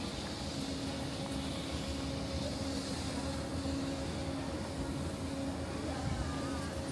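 Outdoor street ambience: a steady wash of noise with a constant low hum and faint distant voices.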